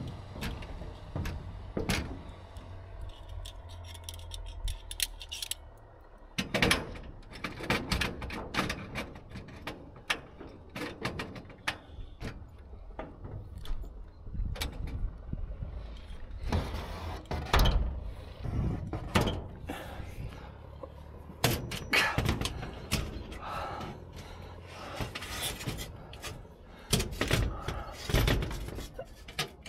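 Irregular knocks, clicks and clatter of solar panels, mounting rails and clamps being handled on a corrugated metal roof, with a low steady rumble in the first few seconds.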